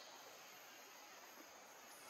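Near silence: faint outdoor background with a steady high hiss.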